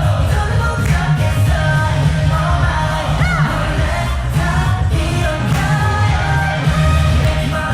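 Upbeat pop dance music with singing and a heavy, pulsing bass.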